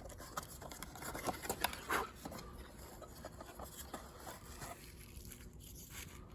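Faint, irregular rustling and clicking of a scratch repair kit's packaging and contents being handled, busiest in the first two seconds and then dying down.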